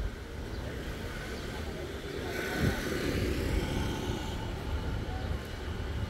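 A motor vehicle passes close by, swelling to its loudest about two and a half seconds in and fading again by about four seconds in, over a steady low street rumble.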